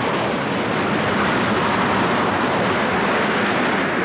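A loud, steady rushing noise that starts suddenly and begins to fade after about four seconds.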